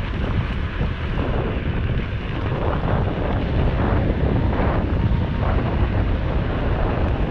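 Wind rushing and buffeting over the microphone on a fast-moving electric bike, a steady noise heaviest in the low end.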